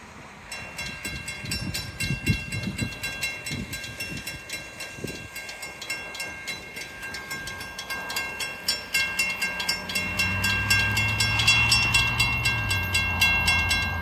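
Railroad grade-crossing warning bell starts ringing about half a second in, with rapid, even strokes at several a second, as the crossing gates lower for an approaching train. From about ten seconds in, a low steady hum grows beneath the bell.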